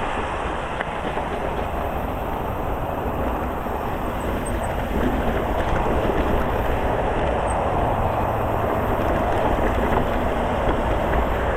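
Steady rumbling noise of an electric mountain bike riding over a rough trail: wind buffeting the microphone, with tyres and frame rattling over rocks. It gets slightly louder about five seconds in.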